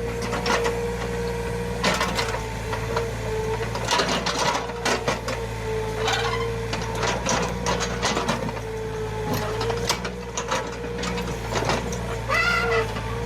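Komatsu PC20 mini excavator working: its diesel engine runs steadily with a whine, while the bucket and arm knock and clank again and again. A short squeal near the end.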